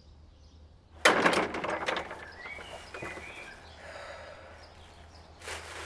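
A wooden door slamming shut about a second in, with a rattling clatter that dies away over about a second. A short rush of noise comes near the end.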